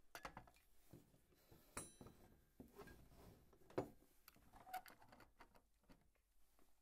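Near silence: room tone with a few faint scattered clicks and small handling noises, the sharpest a single click a little under four seconds in.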